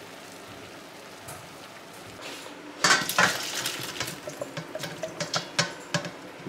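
Boiled cabbage and its cooking water poured from a frying pan into a stainless steel colander in a metal sink: a sudden splash about three seconds in, then a run of clinks and knocks from the pan and colander as the cabbage drops through.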